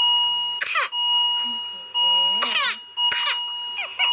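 A whooping cough (pertussis) coughing fit: four harsh coughing bursts in quick succession, some trailing into strained, voiced crying sounds. A steady high electronic tone, like a monitor or alarm, sounds underneath throughout.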